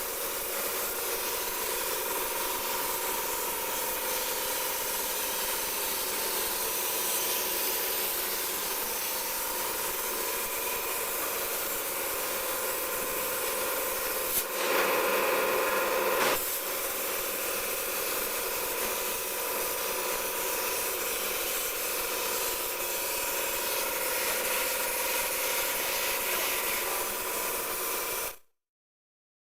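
CNC plasma cutter cutting stainless steel sheet: a steady hiss with a high whine, louder and harsher for about two seconds halfway through, stopping abruptly near the end.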